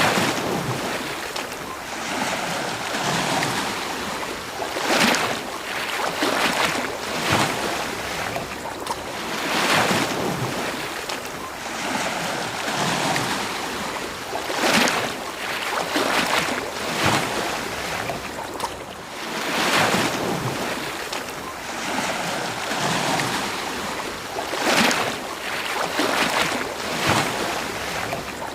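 Ocean waves breaking and washing on a beach: a steady rushing surf that swells and falls every few seconds, with larger breaks now and then.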